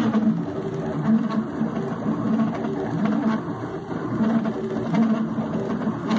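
Stepper motors of a homemade CNC router driving its axes at 100 inches per minute: a string of short humming tones that jump in pitch and stop and start with each pen move.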